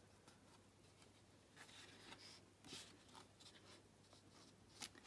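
Faint rustling of thick paper sheets being handled and slid against one another, a few soft brushes in the second half.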